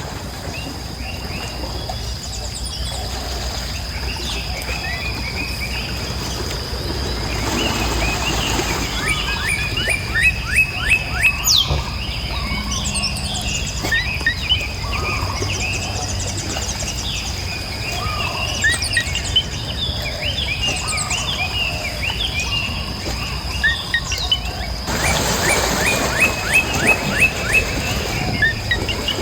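Many birds chirping and calling, with quick runs of sharp repeated notes now and then, over a steady high thin tone and a low background rumble.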